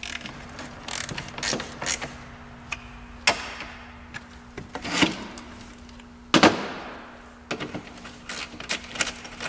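Quarter-inch hand ratchet clicking in quick runs as the fan-shroud bolts are run down by hand into the new radiator's plastic tank. A few louder knocks of tool and parts come in between, the loudest with a short ring.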